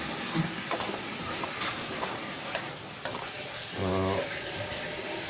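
Green plastic spatula stirring chicken, carrots and potatoes in a simmering coconut-milk curry in a metal wok: soft scrapes and light taps on the pan over a faint bubbling hiss. A short low hum of a voice about four seconds in.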